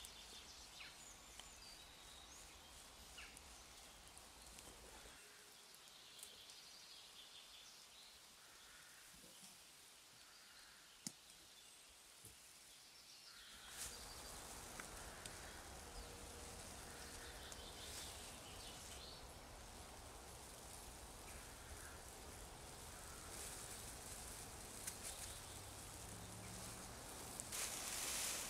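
Faint forest ambience: a low, steady outdoor hiss with occasional faint bird calls and a few light clicks. The background grows a little louder about fourteen seconds in.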